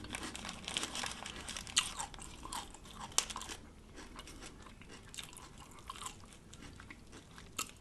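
A person chewing a mouthful of food with small crunching and wet mouth clicks. The chewing is busy for the first few seconds, then comes in sparser crunches.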